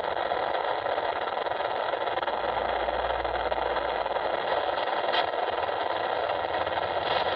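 Carbon Cub S2 RC airplane's electric motor and propeller running steadily in flight, heard as a steady hissing drone through the FPV audio feed played back on a monitor's speaker.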